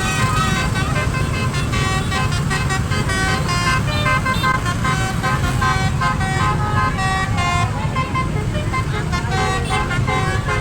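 Multi-tone 'telolet' horn sounding a quick string of short notes at changing pitches, like a little tune, over the steady low rumble of the vehicle's engine and road noise.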